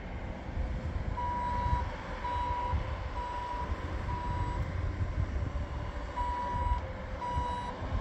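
Skid steer's backup alarm beeping while the machine is in reverse, over its engine running: four beeps about a second apart, a short pause, then two more.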